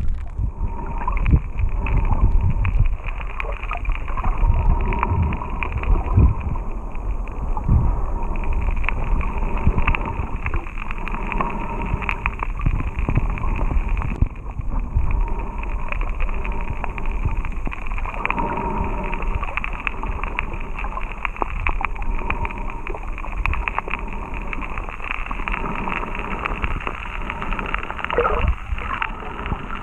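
Underwater sound through an action camera's waterproof housing: a muffled low rumble and gurgle of water moving around the camera, with many faint scattered clicks.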